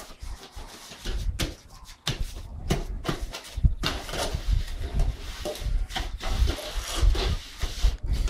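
Hand trowels scraping and knocking as wet concrete is worked into a round mould for a pump lid, in irregular short strokes over a low rumble that comes in about a second in.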